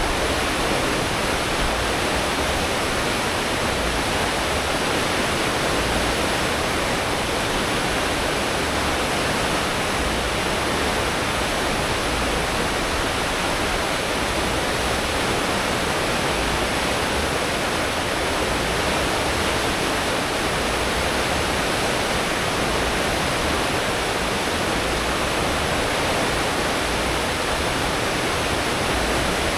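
Churning wake water rushing steadily astern of a cruise ship at full speed, with a low rumble from the engines and propellers underneath.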